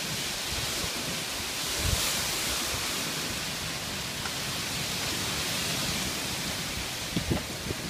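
Heavy rain pouring steadily in a windy thunderstorm. The rush swells about two seconds in, and a few low thumps come near the end.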